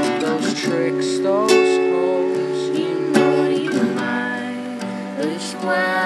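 Yamaha acoustic guitar strummed in a steady song, with a man singing over it.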